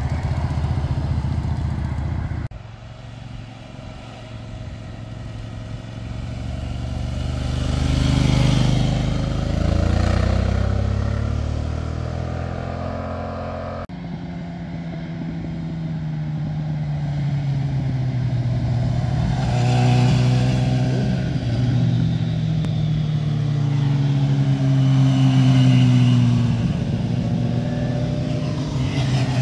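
Motorcycles passing by one after another, each engine note swelling and rising in pitch as it approaches, then falling in pitch as it pulls away. The sound changes abruptly about two and a half seconds in and again about halfway through.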